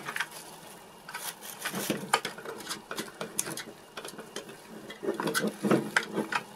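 Plastic cling wrap crinkling and rustling in irregular crackles as fingers press and smooth it around a small plastic part.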